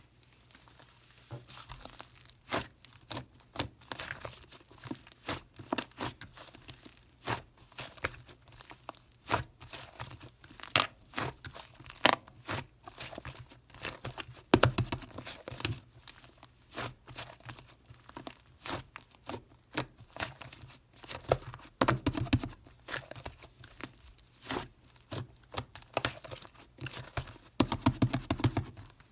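Clay slime being squished, poked and stretched by hand: a steady run of sticky clicks and crackling pops, thickening into denser squishes about halfway, again about two-thirds in, and near the end.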